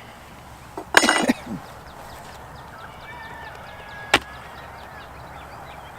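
Wooden beehive being opened: a short, loud creaking scrape about a second in as a cover or box is worked loose, then one sharp knock near four seconds.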